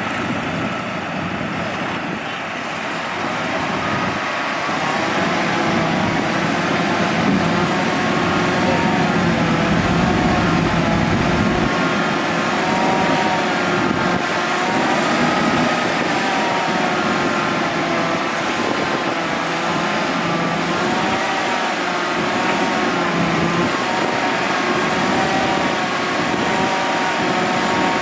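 LiuGong crawler bulldozer at work: its diesel engine runs steadily and loudly, with a high wavering whine over it from about halfway through.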